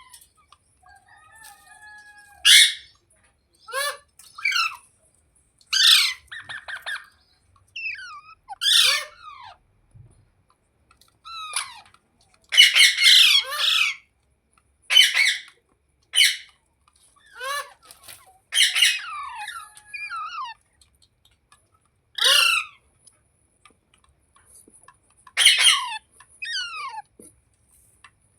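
Pet green parrot squawking: a string of harsh screeches, one every second or two, with quieter falling chirps between them.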